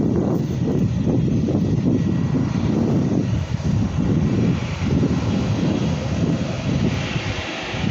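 Airbus A319 jet engines running at takeoff power as the airliner accelerates down the runway: a loud rumble with a higher hiss that swells about halfway through and again near the end. Wind buffets the microphone.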